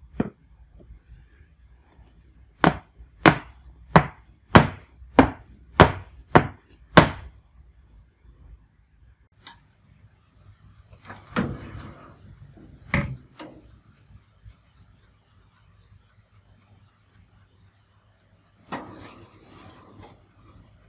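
A batter-filled round metal cake pan is knocked down on a wooden floor eight times, about one and a half knocks a second, to settle the batter and knock out air bubbles. Later come a few metal clatters at the oven, and near the end a scrape as the pan slides onto the oven's wire rack.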